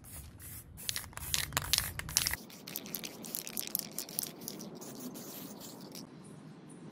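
Aerosol spray paint can hissing, first in a quick run of short bursts and then more steadily, spraying over a paper template to mark the sword outline on the leaf spring.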